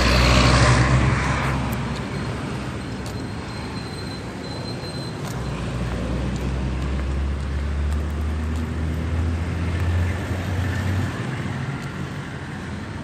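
Street traffic: a louder rush of noise in the first second or so, then a low vehicle engine rumble that swells from about five seconds in and fades again after about eleven seconds.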